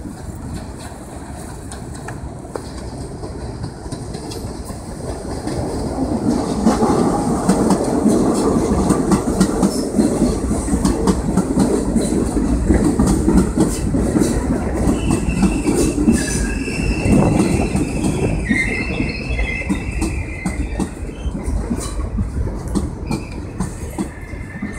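R32 subway train pulling into an elevated station: the rumble and clatter of its wheels on the rails grows louder as the cars come alongside. Over the later part the wheels and brakes squeal in thin high tones as the train slows to a stop.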